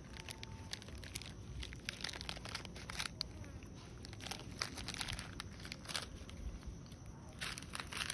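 Plastic snack wrapper crinkling and crackling in irregular bursts as a macaque handles and picks at it.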